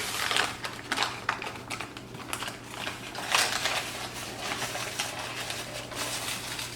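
Irregular clicks, rustling and crinkling as boxed cornbread mix packaging is opened and handled.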